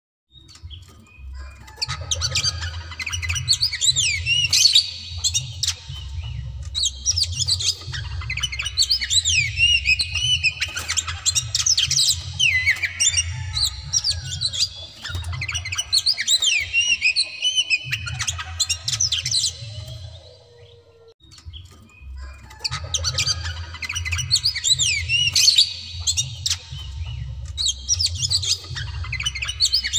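White-breasted Oriental magpie-robin (kacer dada putih) singing in long, fast runs of varied whistled notes. The song stops for about three seconds past the middle, then starts again.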